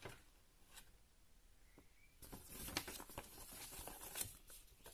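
Faint rustling and crinkling of packaging being handled, with scattered light clicks, starting about two seconds in.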